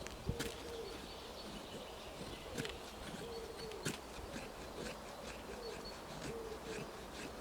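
A bird calling in a series of short hooting notes, each held steady and dipping at the end, repeating every second or so, with scattered sharp clicks of a knife blade shaving wood.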